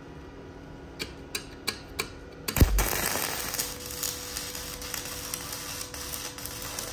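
Stick (arc) welding on steel rebar: a few sharp ticks as the electrode is touched to the work, then about two and a half seconds in the arc strikes and crackles steadily.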